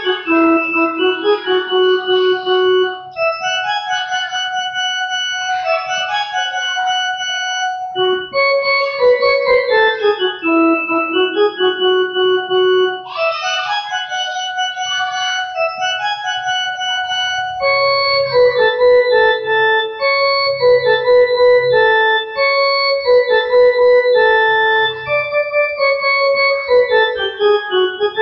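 Casio CTK-6300 electronic keyboard playing a Chhattisgarhi song melody one note at a time, picked out with one finger; the notes become quicker and busier about two-thirds of the way through.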